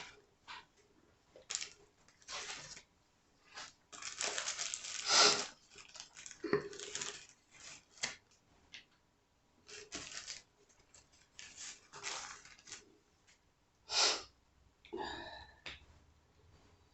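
Short, irregular bursts of rustling and crinkling with gaps between them, as slices of Black Forest ham are pulled apart and laid on a sandwich.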